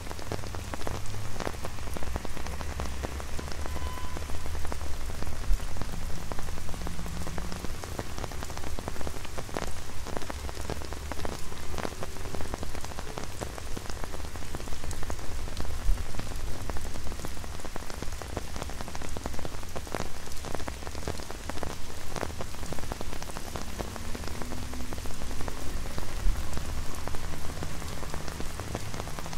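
Rain falling on an umbrella overhead, many separate drops ticking on the canopy, over a steady low rumble of street traffic.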